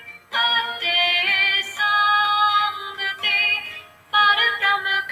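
Background music: a woman singing a slow chant in long held notes, with short breaks just after the start and about four seconds in.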